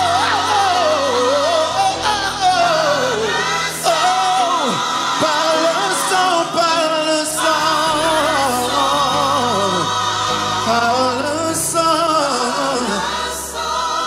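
Live gospel worship music: a lead singer sings long, swooping runs backed by a vocal group, over keyboard accompaniment.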